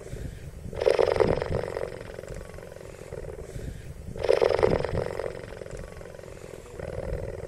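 Loud animal calls, repeated: two strong ones about one second long and three and a half seconds apart, with fainter ones before and after.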